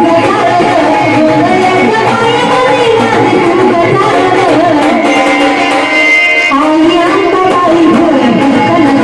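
Marathi devotional song music to the goddess Ambabai: tabla rhythm under a bending melodic line, with some singing.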